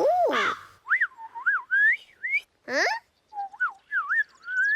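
Cartoon warbler's whistled call: a run of short, clear whistles that swoop up and down in pitch, with short gaps between them.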